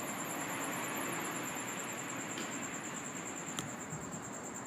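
Steady background noise with a constant high-pitched whine and a couple of faint clicks.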